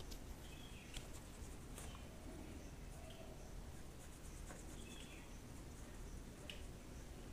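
Faint scratchy strokes of a paintbrush spreading thick green paint on paper, with a few small clicks.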